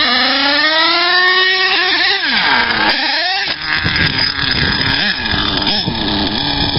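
Small nitro engine of an HPI Savage RC monster truck (an Axial .28) revving up in a rising whine, dropping back and revving again. From about halfway on, the engine is fainter under rough, noisy rumble.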